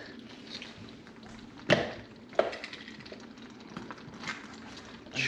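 Kitchen sounds while cooking: several sharp knocks of utensils or cookware, the loudest a little under two seconds in, over a low steady hiss.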